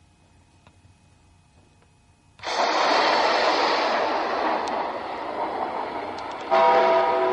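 Near silence, then about two and a half seconds in a sudden loud rushing noise, like a burst of static or a whoosh, that slowly fades. Music with sustained tones comes in near the end.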